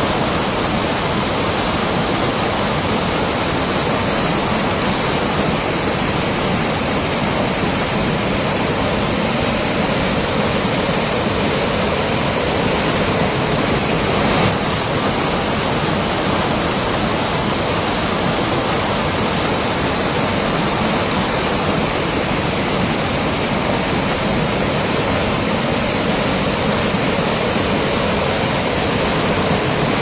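Steady, even rushing of a mountain waterfall falling through a rocky gorge.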